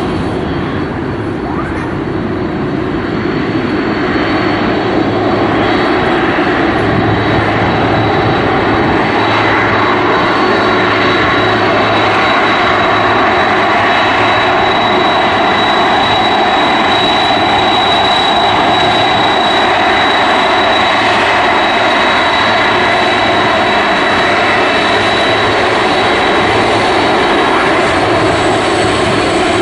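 Boeing 747-400 freighter taxiing past, its four GE CF6-80C2 turbofans running at low thrust with a steady roar and a high, steady turbine whine. The sound builds over the first few seconds and then holds, and the whine is strongest midway, as the engines face the microphone.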